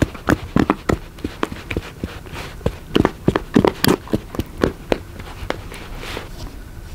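A spoon beating cake batter in a bowl, with irregular sharp knocks against the bowl's side, a few each second.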